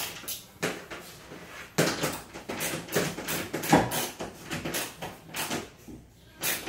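A run of irregular knocks and clunks of things being handled, with the loudest hits just under two seconds and near four seconds in.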